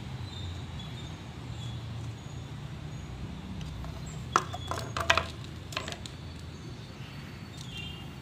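A quick cluster of sharp clacks, about four to six seconds in, from hard white PVC gutter fittings being handled and set down on concrete, over a steady low rumble.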